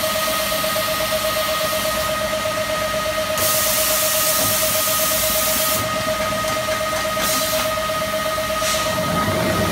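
Compressed air hissing in bursts from the pneumatics of a Mazak Super Turbo X510 MkII CNC laser cutter's sheet loader: one long blast of about two seconds near the middle, then two short ones, over a steady high whine.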